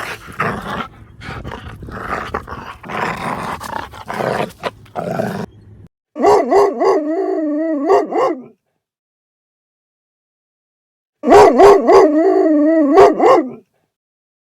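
Dog howling: two drawn-out, wavering calls of about two seconds each, a few seconds apart. Before them, for about six seconds, there is a rough, noisy animal sound that stops suddenly.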